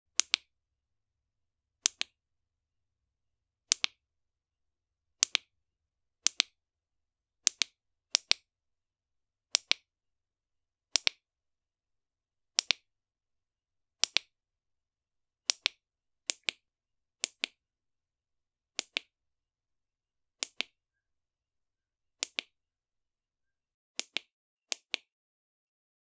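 Flashlight push-button switch clicking, mostly in quick pairs of sharp clicks, repeated every second or two with silence between.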